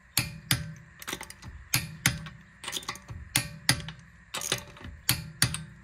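Click-type torque wrench on wheel lug nuts being torqued to 80 foot-pounds: repeated sharp metallic clicks, mostly in quick pairs, about a dozen in all.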